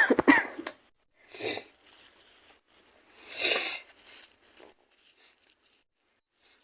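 A woman's sneeze trailing off, followed by two short, sharp sniffs about two seconds apart and a few faint small rustles; her nose is running with a feverish cold.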